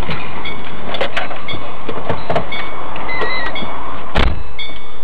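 Loud, rough rumble of a car's interior picked up by a dashcam microphone, with scattered clicks, a heavy thump about four seconds in, and several short electronic beeps.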